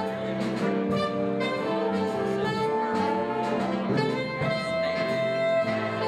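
Big band playing jazz: saxophones and trumpets hold sustained chords that change every second or so, with one long high note held near the end.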